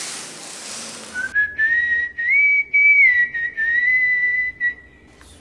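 A person whistling one long, wavering note that slides slowly upward, then holds steady with small dips and fades out near the end. Before it starts there is about a second of faint background hiss.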